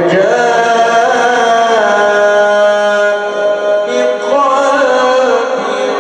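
A man reciting the Quran in the melodic tajweed style, holding long notes that slide slowly and are ornamented, with a short break a little past halfway.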